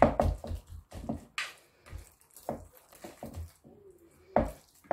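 Hands kneading oiled date paste for makroud filling in a bowl: irregular sticky squishes and pats as the paste is pressed and folded against the bowl's sides.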